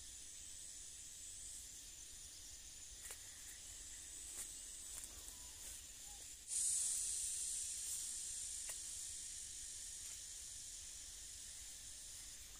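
A steady, high-pitched hiss with a few faint clicks. About six and a half seconds in, a louder hiss starts suddenly and slowly fades over several seconds.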